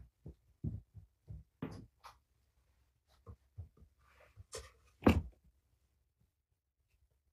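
Scattered soft clicks and knocks from a kitten being handled in a lap, with a brief rustle and the loudest knock about five seconds in.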